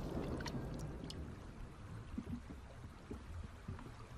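Faint underwater water ambience: a low murmur of moving water with soft scattered gurgles and a few light clicks.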